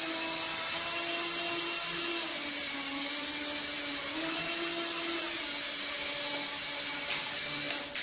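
Tiny electric motors and rotors of a miniature remote-control helicopter whirring steadily in flight, a thin whine whose pitch steps down and back up a few times as the throttle changes.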